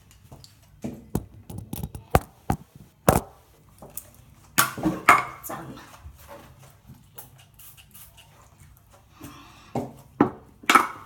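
Irregular clicks and light knocks of small hard objects being handled, louder in clusters about four to five seconds in and again near the end.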